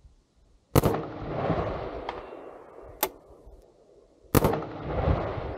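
Two shots from a Chinese-made CQ-A M4-type carbine in .223 Rem / 5.56×45, about three and a half seconds apart. Each crack trails off in a long rolling echo, and a smaller sharp click comes between them.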